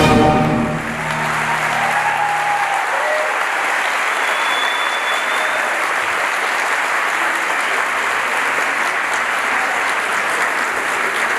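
Audience applauding steadily, while the last chord of the recorded orchestral music fades out in the first two seconds.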